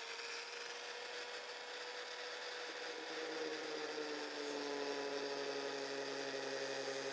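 Handheld electric angle grinder cutting through plywood, a steady gritty whir with a motor whine that slowly sinks in pitch as the disc works along the cut.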